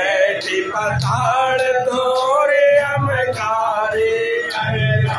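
Male voices singing a Hanuman aarti hymn in long, held phrases. Sharp metallic strokes ring about two or three times a second, with a low thud about every two seconds.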